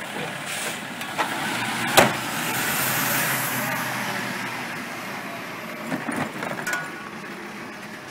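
Rear-loading garbage truck running at the kerb, a steady engine noise, with one sharp bang about two seconds in and a few lighter knocks near the end.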